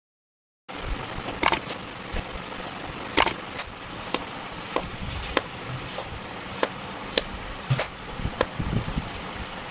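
Knife slicing kinetic sand, starting after a brief silence: a sharp tap each time the blade cuts through and meets the board, at an even pace of a little under two cuts a second, the first few taps the loudest.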